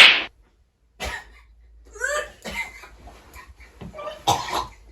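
A person coughing in short bursts, a few times with gaps between.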